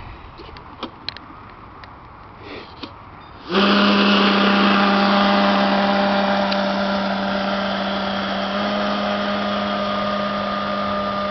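A few small clicks and knocks, then about three and a half seconds in the R/C airboat's motor and air propeller start up abruptly and run at a steady pitch, slowly getting quieter as the boat moves off across the water.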